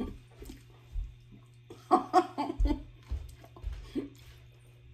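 A woman eating a toasted sandwich: short hummed sounds of enjoyment with her mouth closed, a few soft bumps and faint clicks of chewing and handling.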